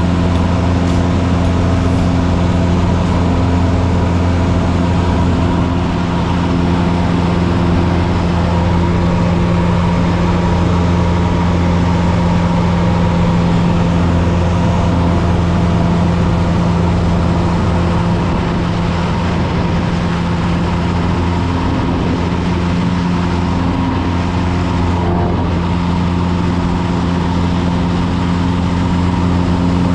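Light single-engine propeller airplane in cruise flight: the piston engine and propeller drone steadily at a constant pitch.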